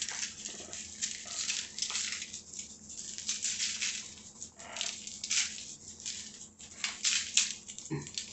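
Dry barbecue rub being shaken out of a spice jar onto raw chicken thighs: a run of quick, irregular rattling shakes, about two or three a second, with the granules hissing out of the shaker top.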